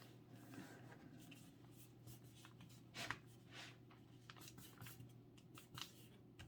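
Faint rustling and crinkling of a sheet of A4 paper being handled and creased into folds, in short soft scrapes, the clearest about three seconds in and again near the end.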